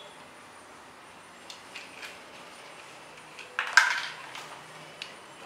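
Light hard clicks and a clatter of plastic toy guns being handled: a few small clicks, then one sharper, louder clatter a little past the middle, then a couple more small clicks.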